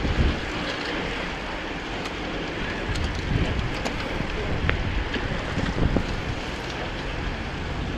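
A pack of road-racing bicycles rushing past, tyres hissing on tarmac, mixed with steady wind buffeting the microphone.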